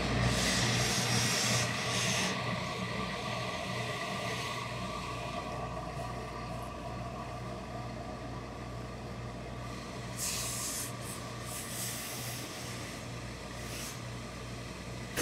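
Hose-fed industrial steam iron pressing coat lining fabric, its steam hissing in short spurts at the start and a few times later, over a steady low electric hum.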